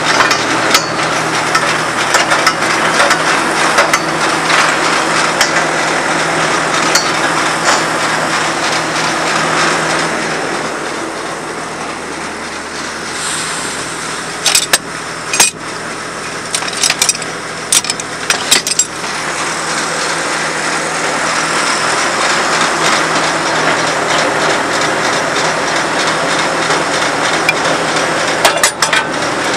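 22W cable tool drill rig's engine running steadily. It falls back in the middle, where several sharp metallic clanks of hand tools in a steel toolbox sound over a few seconds, then comes back to full level.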